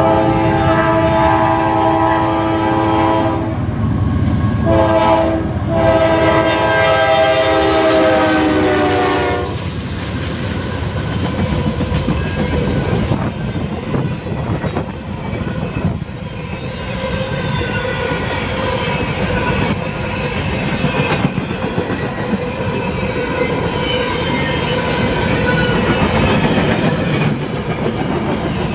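Freight train passing through a grade crossing. The locomotive horn sounds a long blast, pauses briefly, then sounds a longer blast that drops in pitch as the locomotive goes by. After that the cars roll past with wheels clacking over the rail joints and a faint squeal.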